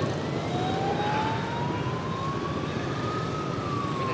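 A siren wails on the road, its pitch rising slowly for about three seconds and then starting to fall, over steady street traffic noise.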